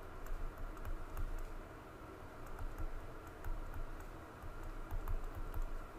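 Faint, irregular clicking and tapping, with soft low thumps mixed in.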